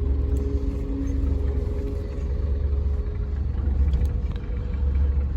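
Delivery truck's engine running with a steady low rumble and a faint hum, heard from inside the cab, with a few faint clicks.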